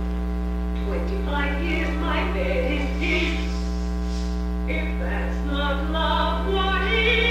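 A woman singing with orchestral accompaniment from a film soundtrack, played back over loudspeakers in a room, under a loud steady electrical mains hum. The singing and music grow louder near the end.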